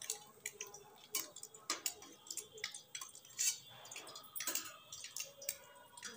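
Hot oil in a kadhai crackling and spitting after paneer cubes have been fried in it, with irregular sharp pops, the loudest about three and a half seconds in.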